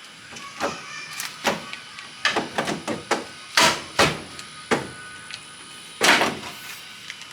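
About a dozen sharp, irregular knocks and bangs from work on a G-body car's door hinge that will not go on easily. The loudest come in the middle and once more near the end.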